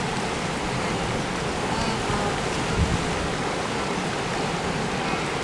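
Steady rush and splashing of water from a herd of wildebeest wading across a river.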